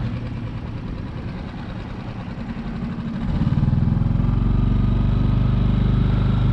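Small outboard motor on a micro skiff running underway, quieter at first and then louder and steady from a little over three seconds in.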